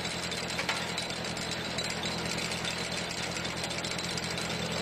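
Tractor engine running steadily at low speed, driving the PTO shaft that turns a cone-shaped screw log splitter spinning free with no log on it.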